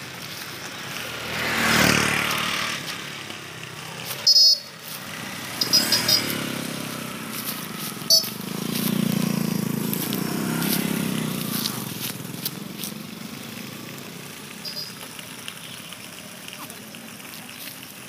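Motor vehicles passing close by: two swells of engine and road noise, a short one about two seconds in and a longer, lower one from about eight to twelve seconds. A few short, sharp, high sounds come in between.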